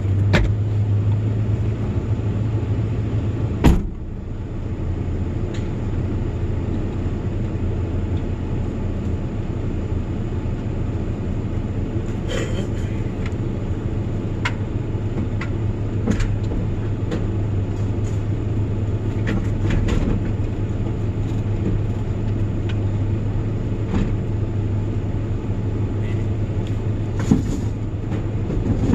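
Truck engine running steadily with a low hum, with one sharp bang about four seconds in, like a door shutting, and a few light knocks later.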